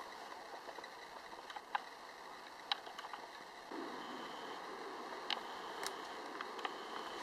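Faint woodland background with a few sharp clicks and ticks. About halfway through, a steady low rush of creek water comes in.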